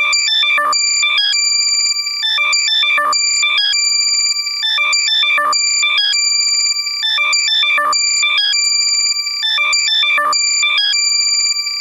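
Loud, heavily compressed electronic alert sound made for locating lost AirPods: shrill held beeps and quick chirping blips in a ringtone-like loop that repeats a little over every two seconds, played in the left channel only.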